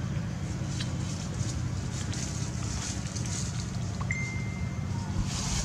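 Outdoor background noise: a steady low rumble with a faint hiss and scattered light ticks, and one high, flat whistle lasting about a second, a little after the middle.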